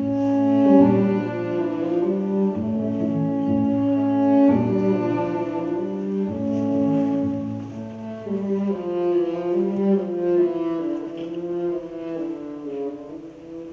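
String quartet of two violins, viola and cello playing classical music in held, overlapping notes that change every second or two.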